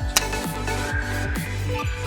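Electronic dance background music with a steady thumping bass beat and a sharp hit about a quarter second in.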